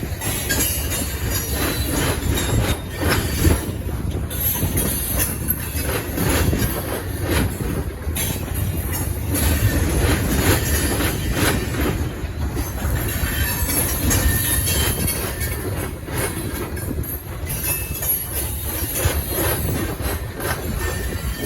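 Freight cars of a local train rolling past, a steady rumble cut by frequent wheel clicks over rail joints, with a light wheel squeal at times.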